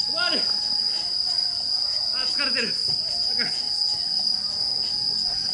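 Night insects trilling steadily at a high pitch, with a few short shouts from players over it.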